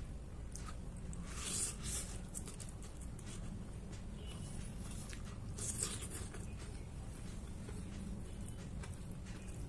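Faint sounds of a man eating noodles with a fork and spoon, with two brief hissing sounds about a second and a half and six seconds in, over a steady low hum.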